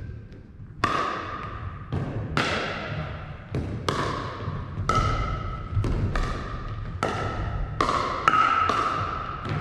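Pickleball paddles striking the hollow plastic ball in a rally: a string of sharp pocks, about one or two a second, each ringing out briefly in the gymnasium.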